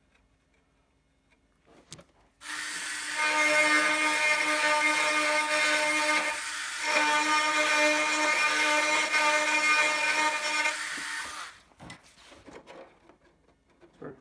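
Small cordless drill boring through the composite fuselage of a model aircraft: a steady whine that starts about two and a half seconds in, dips briefly midway, then runs on until it stops a few seconds before the end, followed by a few light clicks.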